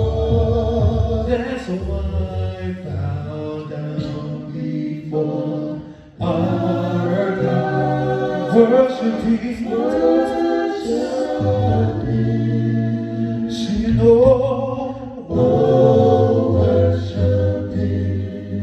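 A group of men singing gospel a cappella in harmony, a low bass part sustained under the lead voices, with a brief break between phrases about six seconds in.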